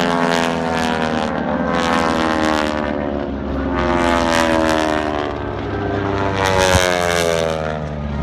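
North American T-6 Texans' Pratt & Whitney radial engines and two-bladed propellers passing low one after another: a rasping drone that swells four times, its pitch falling as each plane goes by. The rasp comes from propeller tips approaching supersonic speed.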